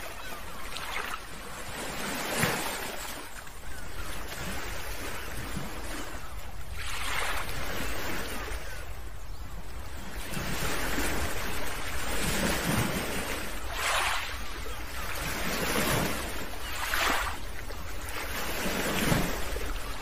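Small ocean waves breaking and washing through shallow surf close to the microphone, swelling in surges every few seconds, over a low rumble of wind on the microphone.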